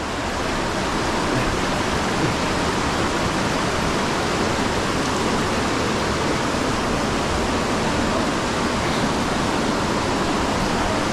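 Mountain stream pouring over a waterfall: a loud, steady, unbroken rush of water.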